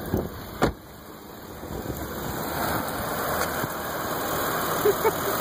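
The Jaguar's V8 running, with a sharp knock less than a second in. After that a steady engine and road noise builds over the next couple of seconds, then holds.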